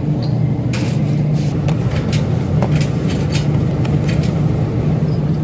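Steady low rumble of grocery-store noise, with a run of sharp clicks and knocks in the middle from items and the cart being handled.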